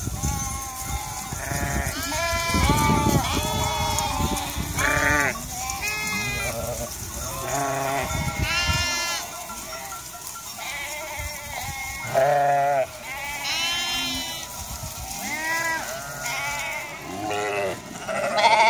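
A flock of sheep and lambs bleating, many overlapping calls at different pitches, one after another throughout. A low rumbling noise runs under the calls for about the first half.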